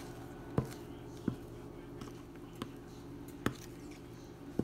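A wooden spoon scraping thick batter out of a plastic mixing bowl, giving a handful of sharp, irregular taps against the bowl, over a steady low hum.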